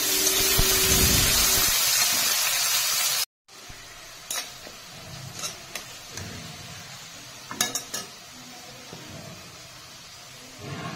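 Sliced onions sizzling in hot mustard oil in a kadai. After a sudden cut about three seconds in, the frying goes much quieter, and a flat spatula scrapes and clicks against the pan a few times as it stirs.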